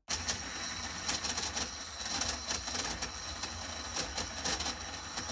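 Bare universal motor running at full speed on 120 V AC, switched on at the start: a steady high whine over a noisy clatter with irregular clicks. The armature, with one end unsupported, knocks against the field poles.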